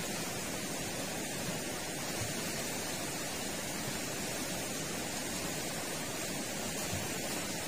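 Steady, even rushing of a river in flood, the water flowing fast and high.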